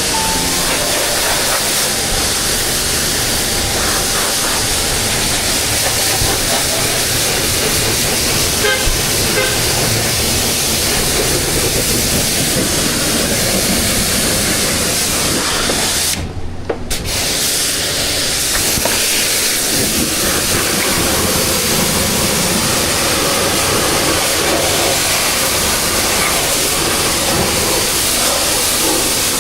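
Self-service car wash high-pressure spray wand in clear-water rinse mode, spraying with a steady loud hiss. It cuts out briefly about sixteen seconds in, then resumes.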